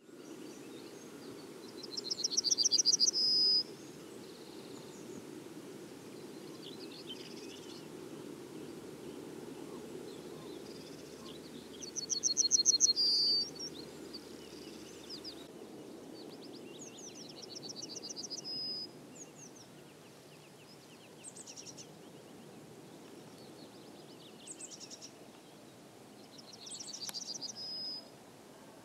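Yellowhammer singing: a quick run of repeated high notes ending in one held note, twice loud and clear as picked up through a plant-pot parabolic reflector onto a smartphone, then twice much fainter as recorded by the iPhone microphone alone. A steady low background hum runs underneath, with faint chirps between the songs.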